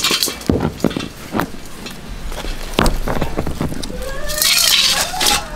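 Stones knocking and scraping on a concrete slab as they are set down one by one to build a hearth, as a few separate sharp knocks. A longer hissy scrape comes about four seconds in, together with a brief wavering call near the end.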